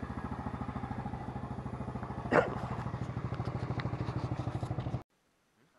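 Small motorcycle engine running at a low, steady idle, pulsing about ten times a second, with one short loud sound about two and a half seconds in. The sound cuts off abruptly about five seconds in.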